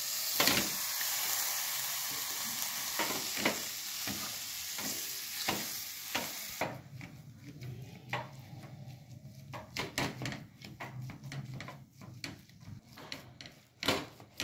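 Peas and spices sizzling in hot mustard oil on a low flame, with a wooden spatula stirring and tapping against the pan. A little over halfway the sizzle drops away suddenly, leaving the spatula scraping and knocking through a thick mashed potato and pea mixture.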